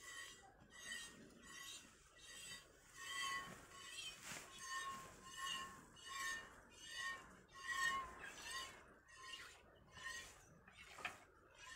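Milk squirting by hand from a water buffalo's teats into a small steel cup, each jet hissing and making the metal ring. The squirts come in a steady rhythm of about one and a half a second.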